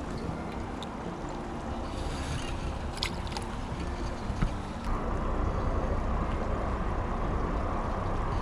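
Steady rush of a small river's flowing water mixed with wind rumble on the microphone. A brief sharp click about three seconds in, and the rush becomes louder and fuller about five seconds in.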